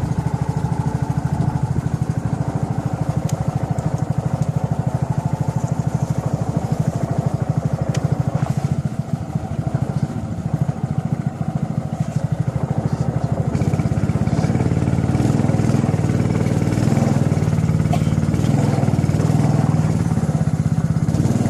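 Small boat motor running steadily as the wooden canoe moves along, getting a little louder about two-thirds of the way through.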